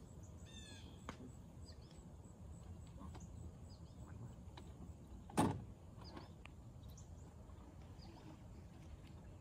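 Quiet lakeside ambience: a low steady rumble with a few faint bird chirps, broken once by a single short thump about five seconds in.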